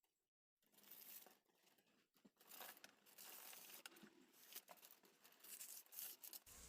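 Faint tearing and crinkling of a printer cable's outer sheath and inner shielding being pulled off by hand, with small clicks.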